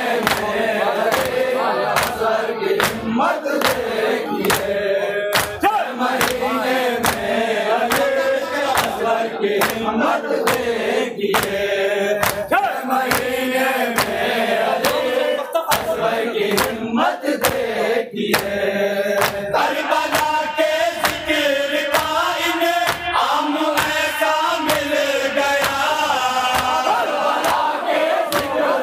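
Men's voices chanting a salam lament in chorus into a microphone. Rhythmic chest-beating (matam) hand strikes keep time, about two a second, with the crowd around them.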